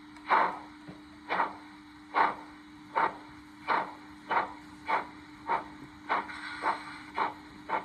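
Steam-locomotive exhaust beats from the Locoman Stanier 8F sound project on a Zimo DCC decoder, played through a small speaker in an OO-gauge Hornby Stanier 8F's tender. The chuffs come evenly and quicken from about one a second to nearly two a second, over a steady low hum.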